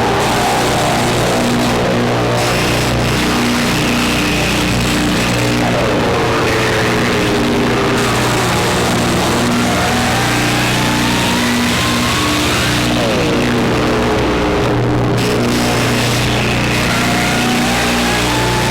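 Electronic drone-noise music from a Krackatone noise box and a Bastl Kastle 1.5 synth through an effects pedal: a dense distorted wash over steady low drones, with pitch sweeps that fall and rise again every several seconds.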